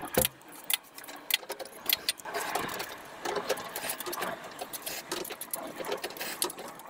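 Irregular sharp clicks and light metallic clatter of hand tools and small metal parts being worked.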